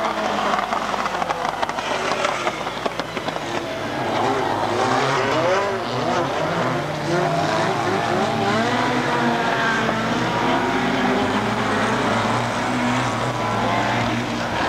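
Several rallycross cars' engines racing on the circuit, overlapping and repeatedly revving up and falling away as the cars accelerate and lift through the corners.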